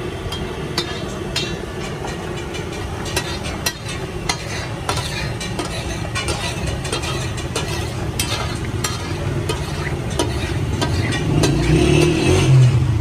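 Liver (kaleji) sizzling as it fries in a pan, with a metal spatula clicking and scraping against the pan as it is stirred. A low steady rumble runs underneath and grows louder near the end.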